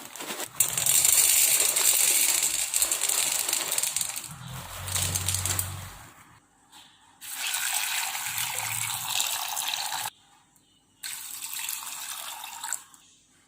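Water running and splashing while soya chunks are washed in a bowl, in three stretches of about six, three and two seconds with short pauses between.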